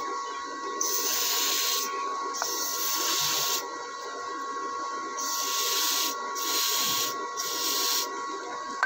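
Aerosol spray can hissing in five short bursts of about a second each, spraying onto a seized bolt to free it.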